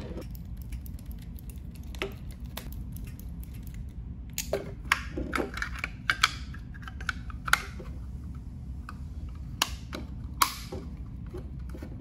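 Scattered clicks and light knocks of plastic electrical fittings being handled, as a limit switch and the lamp holder's plastic cover are closed up, over a low steady hum.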